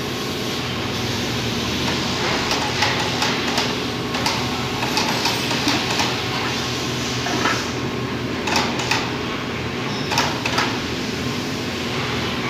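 Steady workshop machinery drone with a low hum. Scattered metal clicks and knocks come as a steel mould plate is lowered onto the guide pins of its mould base and seats.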